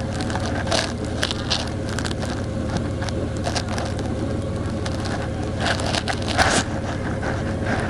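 Onboard sound of a vehicle driving along a road: a steady engine and road rumble with a constant hum, and scattered brief crackles and scrapes, a cluster of them a little past the middle.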